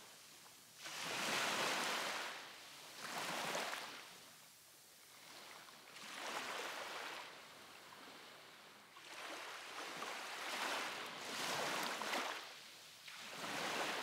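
Small waves breaking and washing up the beach, the surf rushing in and fading again every two to three seconds.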